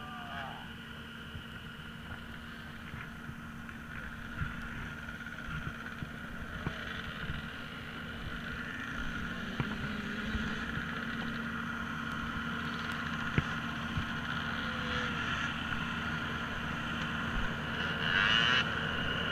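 Ambulance idling: a steady mechanical hum with a high whine, getting louder toward the end, with a brief surge just before the end. Scattered crunches of footsteps on gravel.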